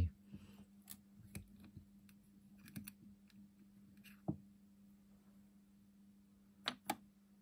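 Faint clicks and taps of small metal Humbrol enamel paint tins and a tin lid being handled and set down on the workbench, with the sharpest click about four seconds in and a close pair near the end, over a faint low hum.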